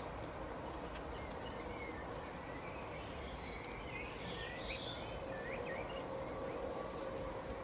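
Wild birds chirping, a cluster of short chirps and quick swooping calls, densest from about two and a half to six seconds in, over a steady outdoor background hiss with a faint low hum.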